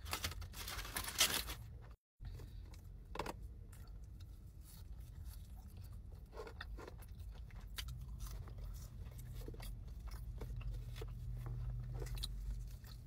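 Close-up eating sounds: chewing of a burger and fries with small wet mouth clicks. A loud crunching burst fills the first two seconds. A low steady hum runs underneath.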